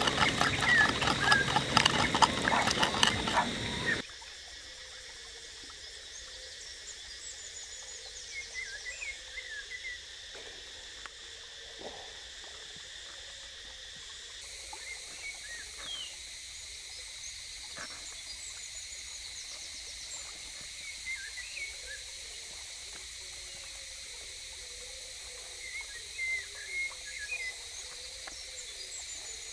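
Pestle pounding and grinding a wet chili mash in a mortar, a fast run of knocks that stops suddenly about four seconds in. Then quiet forest ambience with scattered short bird chirps and a few soft knocks near the end.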